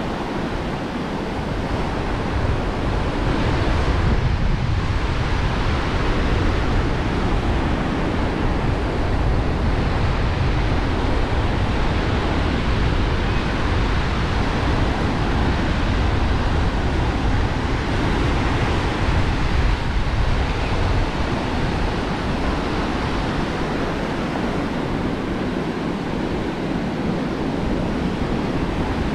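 Steady wash of ocean surf breaking on a beach, with wind noise on the microphone.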